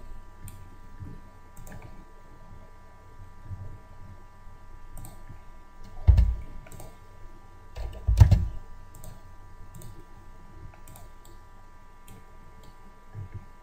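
Computer mouse clicking now and then, with two louder dull thumps about six and eight seconds in.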